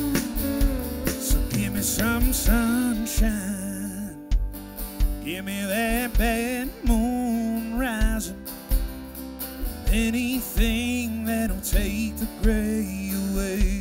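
Country band playing an instrumental break: drums, bass and guitars, with a pedal steel guitar's sliding notes.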